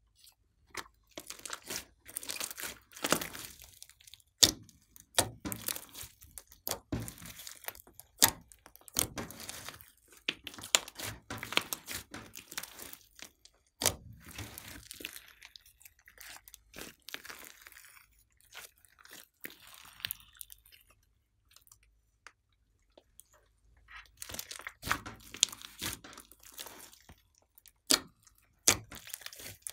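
A large lump of sticky, foamy slime being squished, stretched and folded by hand, giving clusters of sharp wet clicks and pops. The sounds come in irregular bursts and go quiet for a few seconds past the middle before starting again.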